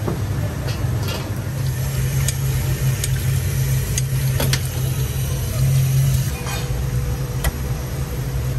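A steady low mechanical hum with occasional sharp clicks and light clatter.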